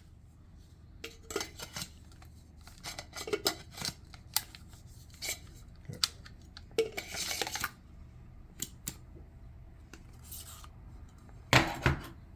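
Small hard plastic and metal tool parts being handled: scattered light clicks, taps and short rattles, with a louder clatter near the end.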